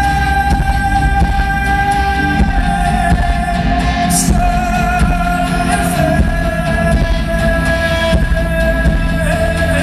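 Live music: a long, held wordless sung note that slowly sinks a little in pitch, over a steady low drone.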